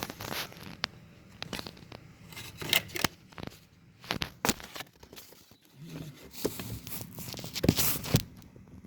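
Handling noise: irregular rustling and scraping with scattered sharp clicks, as hands and the recording phone move along the AC lines in the engine bay.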